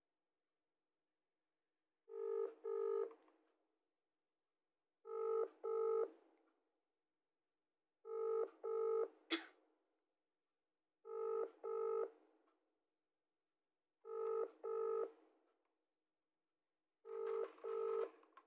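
Outgoing-call ringback tone played through a smartphone's loudspeaker: six double rings about three seconds apart, the call ringing at the other end and not yet answered. A sharp click sounds about nine seconds in.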